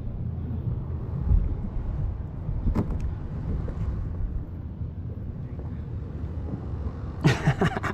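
Wind buffeting the microphone, a steady low rumble, with one sharp click about three seconds in.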